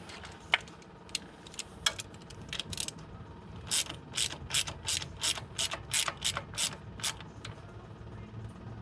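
Ratchet wrench clicking: a few scattered clicks, then a run of about ten strokes at roughly three a second, as the primary chain adjuster is turned to take up slack in an over-loose primary chain.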